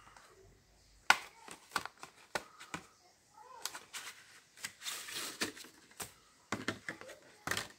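Clear plastic blister pack crackling and snapping as it is pulled away from the card backing of a brazing blow torch. There are irregular sharp clicks throughout, the loudest about a second in.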